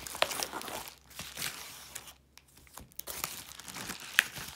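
Yellow padded bubble mailer being opened and handled: paper crinkling and tearing in short rustles and crackles, with a lull a little past halfway and a sharp click near the end.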